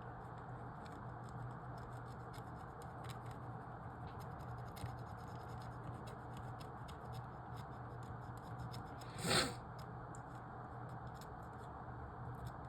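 Pen scratching and tapping faintly on paper as marks are made in a logic-puzzle grid, over a steady low hum. One brief louder rustle about nine seconds in.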